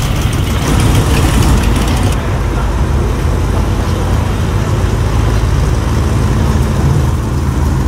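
Engines of classic cars running as they drive slowly past: a brass-era open touring car, then, after a cut about two seconds in, a red 1957 Chevrolet. Steady low rumble throughout.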